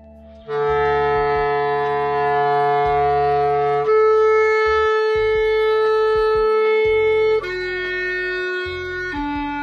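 Clarinet playing slow, long held notes, entering about half a second in; the first two notes last over three seconds each, then it steps down to two lower notes.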